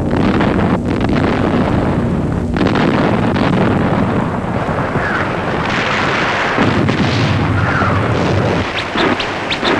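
Artillery barrage: a dense, continuous rumble of explosions, with a run of sharper cracks near the end.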